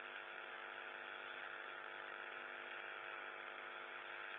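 Open space-to-ground radio channel carrying a steady static hiss with a constant hum of many overtones underneath, the sound of a keyed-open comm loop between transmissions.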